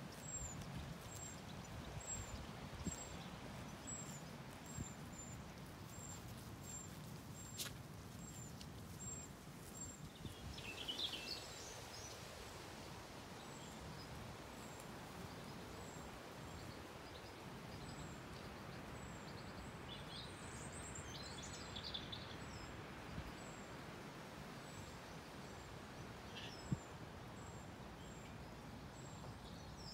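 Quiet outdoor ambience: a low steady rumble with small birds chirping briefly, once about ten seconds in and again about twenty seconds in. A single sharp click comes near the end.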